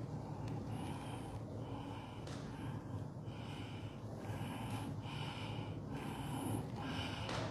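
Breathy exhalations with no voice in them, repeated roughly once a second, over a steady low background rumble.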